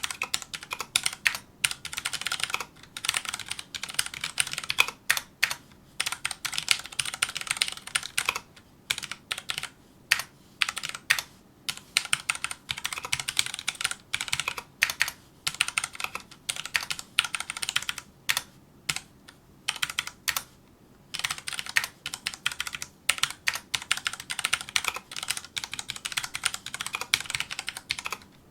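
Fast touch typing on a Filco Majestouch2 mechanical keyboard with tactile, non-clicky Cherry MX Brown switches: dense runs of key clacks in bursts, broken by short pauses, the longest a little after two-thirds of the way through.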